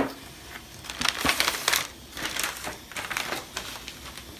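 Paper-and-plastic sterile packaging of a bipolar cautery probe crinkling and rustling as it is opened and handled, in several crackly bursts. A sharp snap comes at the very start.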